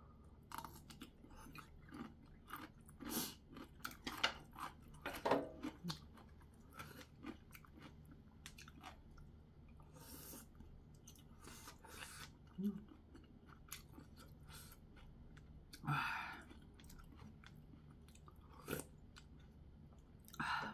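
Close-up eating sounds of kimchi ramen: slurping noodles and chewing with wet mouth clicks, dense in the first six seconds, then sparser with a longer slurp about two-thirds of the way in.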